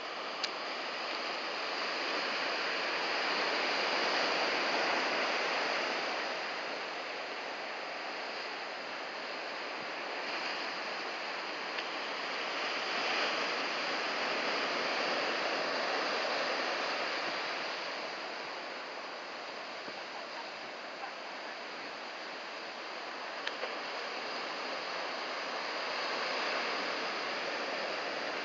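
Ocean surf from a typhoon swell breaking along the beach: a continuous wash of noise that swells and eases three times.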